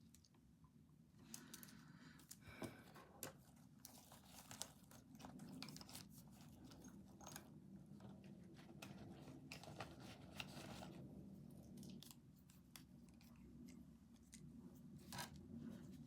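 Faint rustling, scratching and small clicks of paper and stationery being handled at a desk, busiest through the first two-thirds and sparser near the end.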